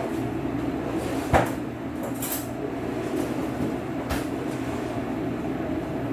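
A steady low mechanical hum, with one sharp knock about a second and a half in and a lighter click around four seconds.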